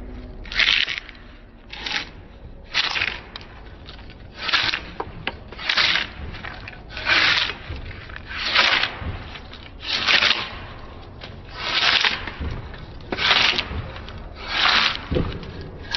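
A long hand-held metal blade scraping decayed bark and rotten wood off the edge of a board. It comes in repeated strokes, about one every second and a half.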